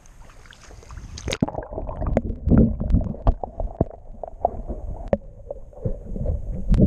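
Water sloshing and gurgling heard through a camera microphone held underwater: muffled, with the high end gone, and dotted with small clicks and knocks, as a small spot is released into the shallows. There is a sharp splash about a second in as the camera goes under, and another near the end as it comes back out.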